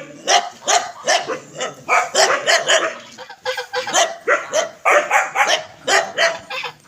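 Several ducks quacking in short, loud, overlapping calls, several a second, with brief pauses.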